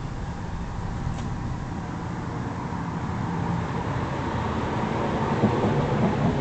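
Steady low rumble of road traffic, growing louder toward the end.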